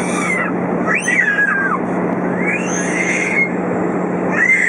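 Airbus A320 cabin noise in flight: a steady rush of engine and airflow noise with a low hum. Over it a small child cries in four high wails that each rise and fall.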